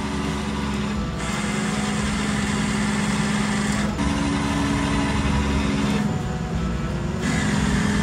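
A truck engine running steadily as a tow truck. Its hum steps up slightly about four seconds in and briefly drops away about six seconds in, over a constant rushing noise.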